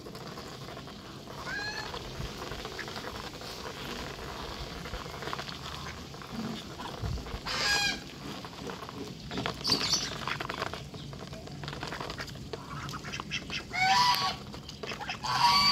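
Domestic geese honking a few times, the loudest calls near the end, over a steady light tapping and scraping of bills pecking grain off a feed tray.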